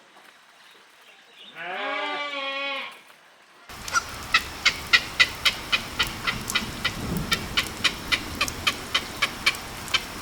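A single drawn-out bleat from a farm animal begins about a second and a half in. After a cut, a steady hiss carries a quick run of sharp clicks, about three a second.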